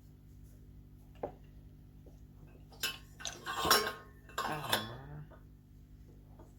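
Metal parts of a ceiling fan clinking and clattering as it is handled: a light click about a second in, then a run of loud sharp clanks in the middle.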